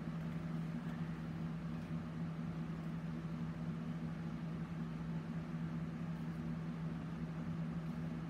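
Steady low mechanical hum with a faint hiss, even and unchanging throughout.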